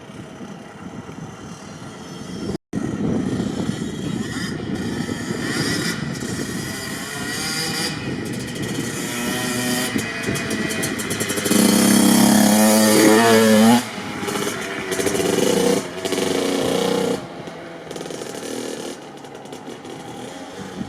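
Kawasaki KX65 single-cylinder two-stroke dirt bike engine being ridden. It revs up in a rising whine to its loudest about twelve seconds in and drops off sharply near the fourteen-second mark. Two shorter blips of throttle follow, then it runs on more quietly.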